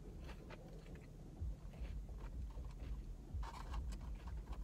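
Faint chewing of French fries with the mouth closed, with small scattered crunches over a low steady rumble.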